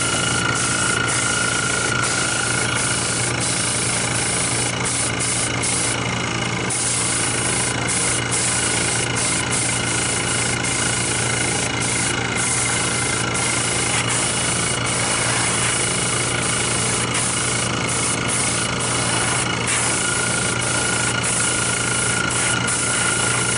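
Air compressor running steadily with a constant hum and whine, under the even hiss of a small siphon-cup spray gun spraying Cerakote.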